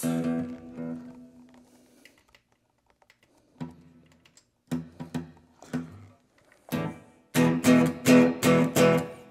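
Guitar chords strummed through a Roland DEP-5 digital reverb: a first chord rings out and fades over about two seconds, then a few single strums, then a quicker run of strums near the end. The signal passes through without cutting out.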